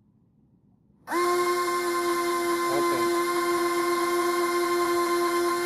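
Electric propeller motors of an Air Hogs remote-control X-Wing toy spinning up about a second in and running at a steady high whine for several seconds.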